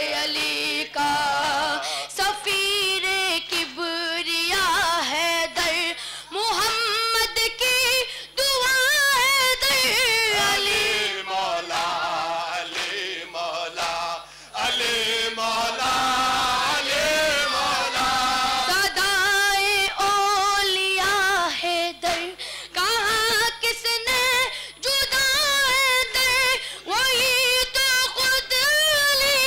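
A boy's solo voice chanting a nawha, an Urdu lament for Imam Ali, unaccompanied and sung into a microphone, in long phrases with a wavering, ornamented melody and short breaks for breath.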